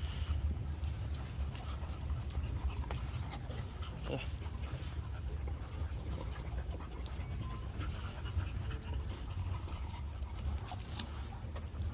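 A dog panting, with scattered small clicks, under a steady low rumble.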